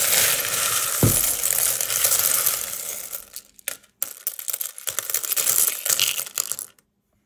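A pile of loose sewing buttons being stirred by hand: a dense, continuous clatter of buttons clicking against each other, with a soft thump about a second in. It then thins to sparser separate clicks as a handful is scooped up and let fall back, and stops shortly before the end.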